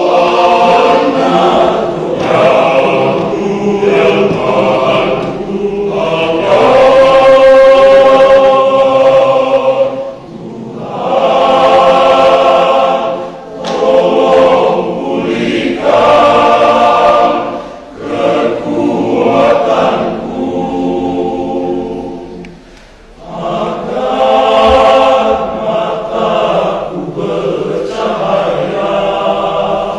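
Men's church choir singing a hymn in several parts, in long sung phrases with brief pauses for breath about ten, eighteen and twenty-two seconds in.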